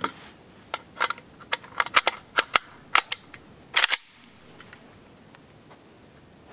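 Yugoslavian AK-pattern rifle firing 7.62x39 steel-core surplus rounds semi-automatically at a steel gong: about ten sharp shots in quick, uneven succession. The shooting stops about four seconds in.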